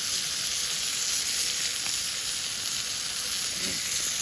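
Food sizzling steadily on a hot iron griddle over a campfire.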